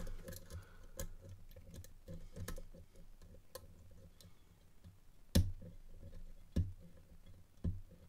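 Faint, irregular metallic clicks of a deep hook pick and tension wrench working the spool pins inside a Corbin Russwin Access 3 lock cylinder, with three louder clicks in the second half.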